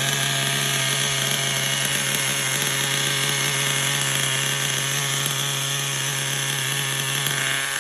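Small glow-fuel nitro engine of an Ishima Rave RC buggy running at a steady, high pitch, tuned rich.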